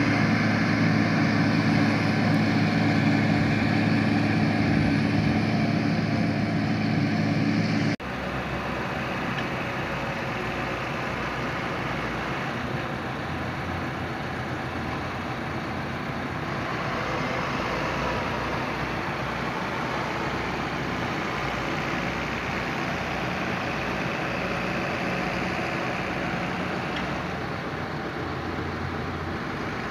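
John Deere self-propelled forage harvester chopping maize, its engine running steadily under load. About eight seconds in, the sound cuts abruptly to a quieter, rougher tractor engine working chopped maize on the silage clamp.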